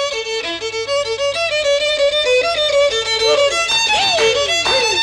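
Fiddle music: a fast tune of quick stepping notes, with several swooping downward slides in the second half.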